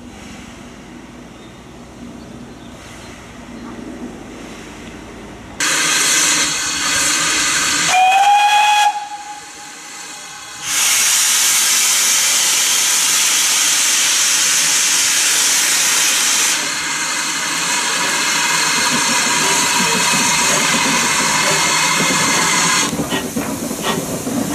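GWR 1600 class pannier tank engine No. 1638 letting off steam. A loud hiss starts suddenly a few seconds in, with one short whistle sliding up in pitch about two seconds later. A long, steady hiss of steam from the open cylinder drain cocks follows, and near the end it eases and a few knocks are heard as the engine moves off.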